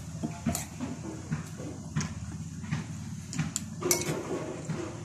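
Eating with a spoon: chewing and mouth noises, with short clinks and taps of a metal spoon against a plate, over a steady low hum.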